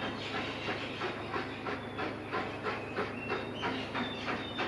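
Ex-LMS Princess Coronation class 4-6-2 no. 46233 Duchess of Sutherland working hard up a gradient, its exhaust beating sharply and evenly at about three beats a second over a steady low rumble.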